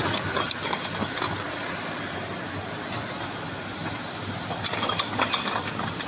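Automatic bottle brushing machine running with a steady hiss, and clusters of sharp clattering near the start and again about five seconds in.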